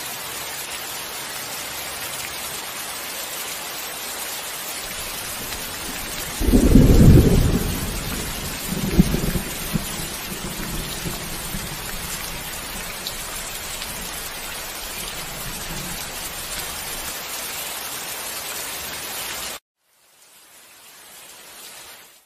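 Steady heavy rain with a loud thunderclap about six seconds in, rumbling on for several seconds with a second crack near nine seconds. The rain cuts off suddenly near the end, then a faint sound swells in.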